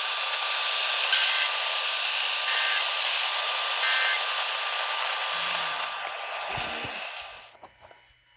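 Loud radio static hiss with a faint steady whine, under which three short EAS end-of-message data bursts sound, each a quick two-tone warble, about a second and a half apart. Near the end the static cuts off abruptly.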